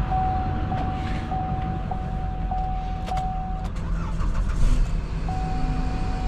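A car's engine running, with a steady high electronic warning tone that breaks off briefly about every half second. The tone stops a little past halfway and starts again near the end.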